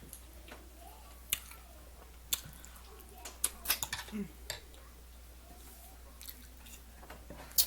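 A person chewing food with wet mouth clicks and smacks, scattered sharp clicks with a cluster about three to four seconds in.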